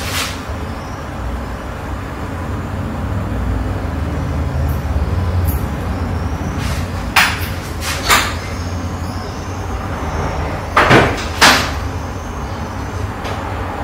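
Long-haired ginger cat purring steadily, a low continuous rumble, while it lies in catnip. A few short clicks or rustles break in about seven and eight seconds in, and twice close together near eleven seconds.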